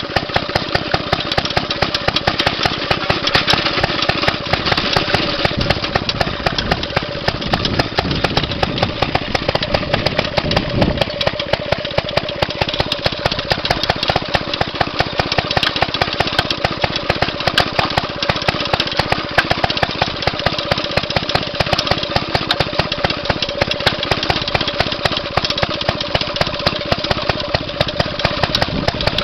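Maytag two-stroke gas engine running fast and steady in a rapid, even string of firing pops as it drives a walk-behind garden tractor.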